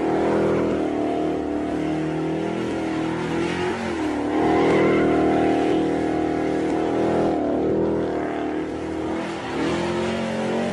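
Car engine held at high revs during a burnout, its pitch dipping and climbing back several times as the rear tires spin in a cloud of smoke.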